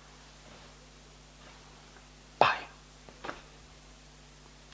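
Quiet room tone with a faint steady hum, broken by one short sharp sound about two and a half seconds in and a fainter one a little under a second later.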